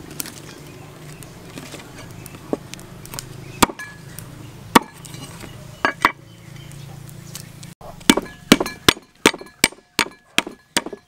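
Meat cleaver chopping lemongrass stalks on a wooden chopping board: a few scattered strikes, then a quick run of chops, about three a second, over the last three seconds.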